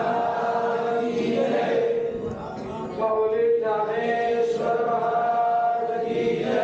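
Voices chanting a devotional chant in long, held notes. The chant eases off briefly about two seconds in, then picks up again.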